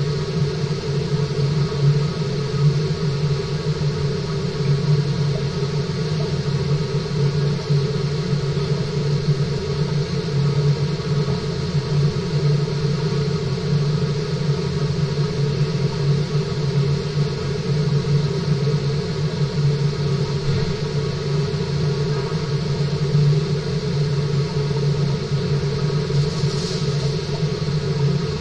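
Steady, unbroken low mechanical hum with several constant tones over a rushing noise, from the fish tank's water circulation system.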